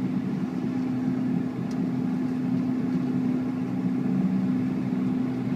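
Bombardier Q400 turboprop engines running, a steady drone with a low two-note hum, heard inside the passenger cabin.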